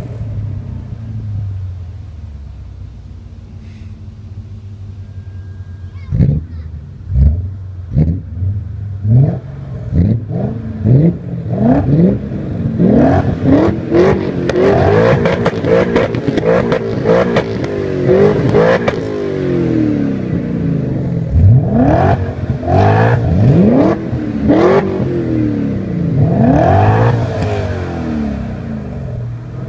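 BMW M5 E39's V8 through an aftermarket exhaust, running steadily at first, then revved in a series of sharp throttle blips about once a second from about six seconds in, with longer rising and falling revs in the middle and more blips near the end.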